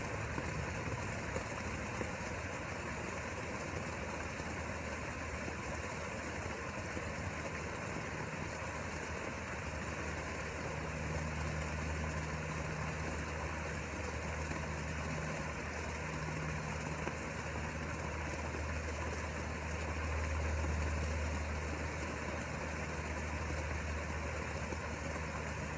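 A steady low mechanical hum, like a motor or engine running, over a constant hiss; the hum grows louder about two-thirds of the way in, then eases near the end.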